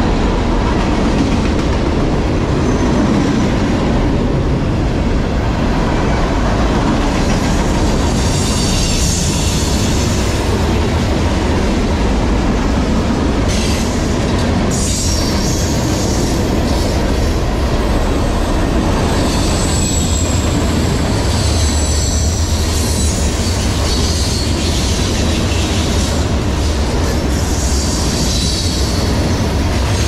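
Freight cars of a passing CSX manifest train, tank cars and covered hoppers, rolling by close at hand: a steady loud rumble of steel wheels on rail, with high-pitched wheel squeal rising and fading several times.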